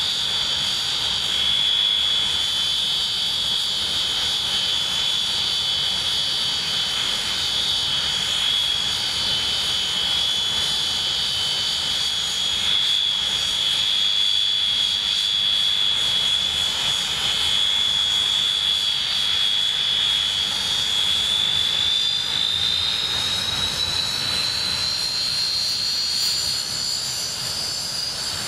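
English Electric Canberra's twin Rolls-Royce Avon turbojets running on the ground with a loud, steady high whine over a low rumble. Roughly three-quarters of the way through, the whine rises in pitch as the engines spool up.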